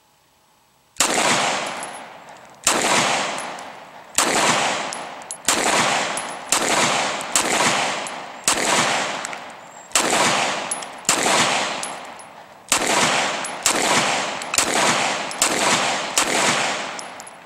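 A 9mm Glock 19 pistol fitted in a CAA Micro RONI Recon chassis firing about fifteen single shots at a steady, roughly one-a-second pace, starting about a second in. Each shot is followed by a long echo that fades.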